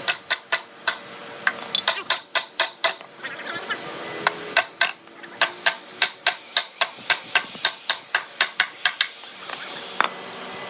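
Hand tool striking wood in quick repeated sharp knocks, about three to four a second, pausing briefly twice.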